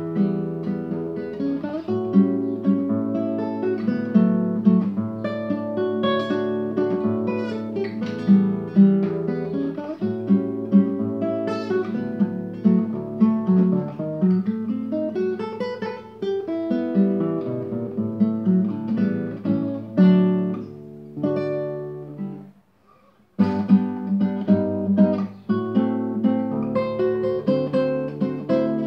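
Solo classical guitar played fingerstyle in drop-D tuning (DADGBE), plucked melody and chords over a moving bass line. About two-thirds of the way through, the notes ring down into a brief silence, then the playing resumes.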